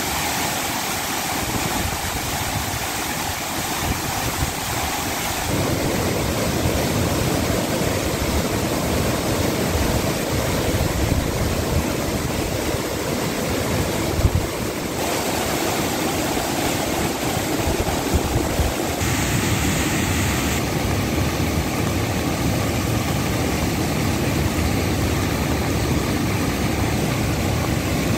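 Water released through the open spillway gates of Gangapur dam, churning and rushing in a steady dense roar of white water. The tone of the rush shifts abruptly a few times.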